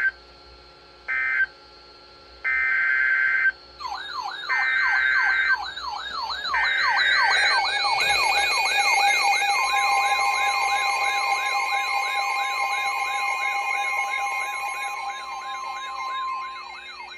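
Emergency Alert System signalling. Short, harsh, buzzy digital data bursts, the end-of-message codes closing the tornado warning, are followed by the header bursts of the next alert. A fast warbling siren-like alert tone sweeps up and down about four times a second, with steady attention tones under it, and stops shortly before the end.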